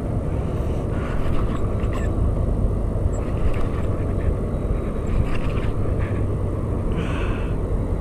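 Steady low rumble of wind buffeting the microphone, with a few faint short rattles from the spinning reel being cranked while a fish is played.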